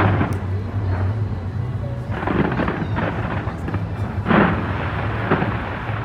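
Fireworks shells bursting, with booms about two seconds apart, the loudest a little over four seconds in, over a steady low rumble.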